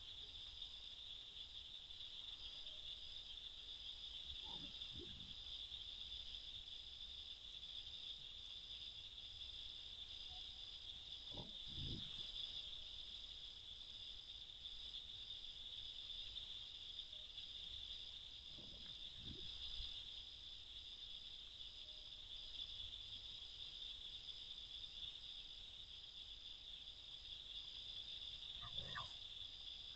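Night insect chorus: a steady high trill with a faster pulsing chirp above it, and a few faint, short, low sounds from time to time.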